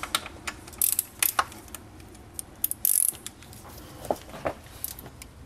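Irregular clicks and metallic clacks of a ratchet wrench turning the serpentine belt tensioner on a BMW E36 M3 engine while the belt is slipped on. The louder clacks come about one second and about three seconds in.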